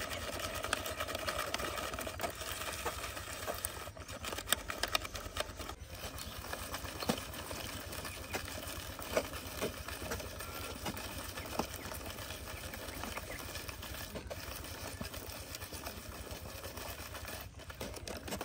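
Garlic being chopped in a hand-operated chopper: irregular clicks and knocks over a steady background hiss.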